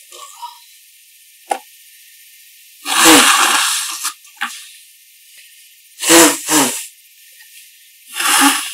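A person blowing their nose hard into a handkerchief, three loud noisy blasts: a long one about three seconds in, a double push about six seconds in, and a shorter one near the end. There is a short click about a second and a half in.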